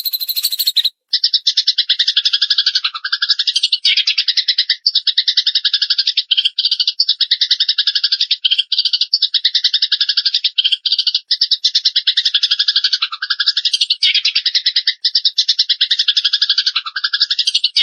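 A small songbird singing a fast, rattling trill, in a near-continuous run of phrases each a second or so long with brief breaks between them. A different, harsher chirping stops about a second in.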